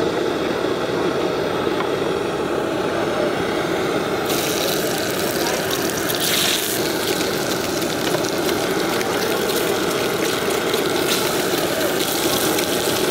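Steady low roar of street-stall background noise, with a brighter hiss coming in about four seconds in and a few light clicks and taps.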